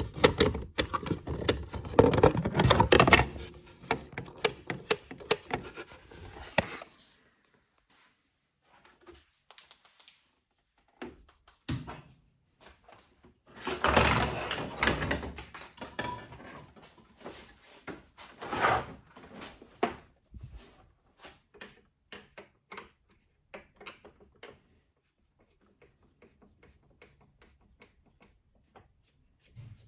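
Clatter of hard parts and tools being handled on a work surface: a run of dense clicks and knocks, a pause, another burst of clatter, then scattered light clicks.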